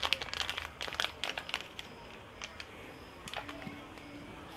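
Wooden spatula stirring and scraping cooked rice in a nonstick pan: a quick run of short scrapes and taps in the first second and a half, then a few scattered strokes.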